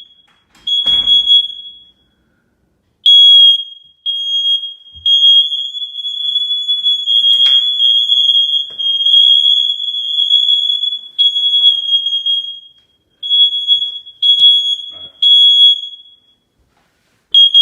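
Smoke alarm's piezo horn sounding its test alarm, a shrill single tone in irregular blasts: a few short blasts, then a long near-unbroken stretch, then a final blast as the test button is pressed again.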